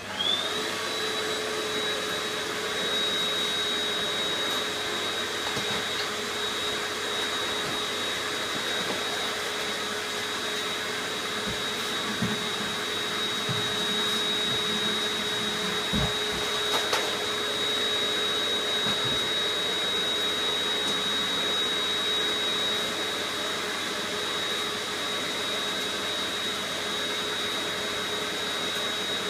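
Vacuum cleaner switched on, its motor whining up to speed within a fraction of a second, then running steadily with a high whine over a rushing hiss. A few dull knocks come around the middle.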